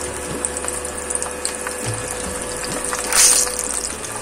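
Whole slit eggplants frying in hot oil in a wok, a steady sizzle with small crackles, and a louder burst of hissing about three seconds in as another eggplant goes into the oil.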